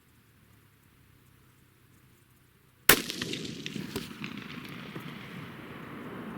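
A single rifle shot about three seconds in, a test shot while zeroing a rifle scope, followed by several seconds of lingering noise.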